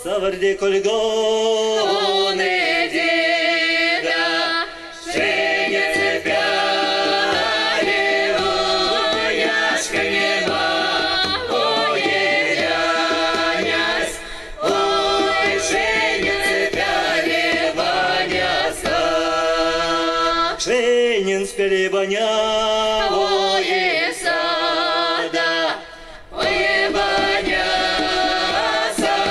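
Mixed men's and women's folk ensemble singing a Mordovian folk song in several-part harmony, the voices carrying the song, in long phrases with short breaks about five, fourteen and twenty-six seconds in.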